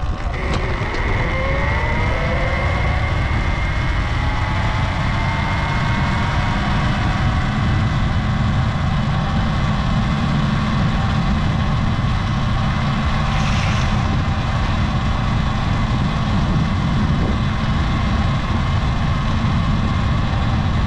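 Sur Ron Light Bee electric dirt bike under way: the whine of its electric motor rises in pitch over the first couple of seconds as it speeds up, then holds nearly steady, over a loud steady low rushing noise.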